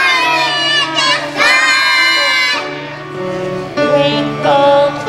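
Children's choir singing, with a softer stretch about halfway through.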